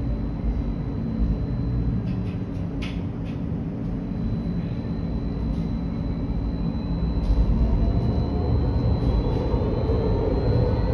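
Tram running, a steady low rumble that grows louder about seven seconds in. A few light clicks come around two to three seconds in, and a faint whine rises in pitch toward the end.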